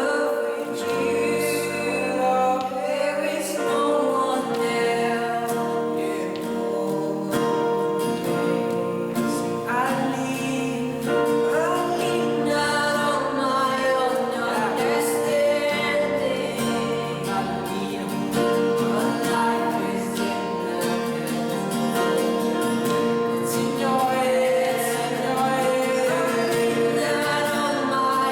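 Gospel singing with instrumental accompaniment: voices holding and gliding between notes over steady sustained chords.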